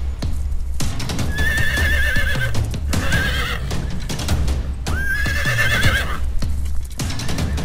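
Two horse whinnies, each about a second long with a quavering pitch, over background music with a steady low beat.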